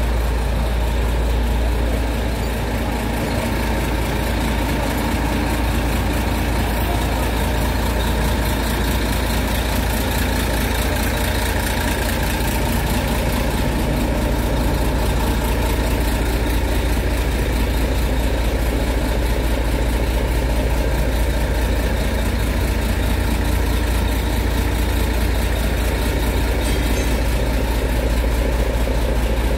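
Diesel engine idling steadily, a deep, unbroken running sound with no change in speed.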